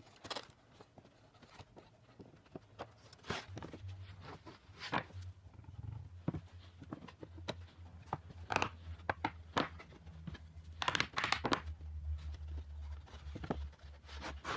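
Irregular knocks, clicks and taps, as of things being handled, over a low steady hum that grows stronger in the second half.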